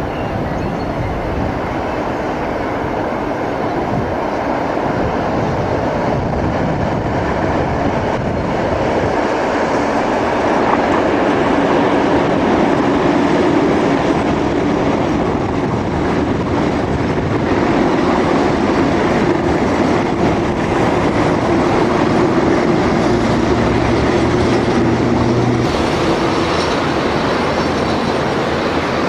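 A diesel locomotive hauling Ganz Mavag electric multiple-unit cars passes along the line, with engine drone and wheel noise growing louder over the first dozen seconds and then holding steady.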